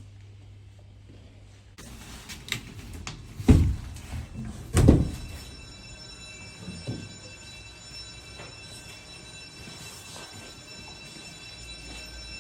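Eerie background music. It starts abruptly with a few knocks and two deep booming hits about a second and a half apart, then settles into a steady high drone.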